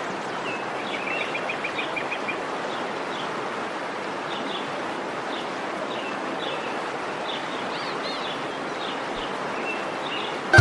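Steady rush of falling water from a waterfall, with small birds chirping over it and a quick trill about a second in.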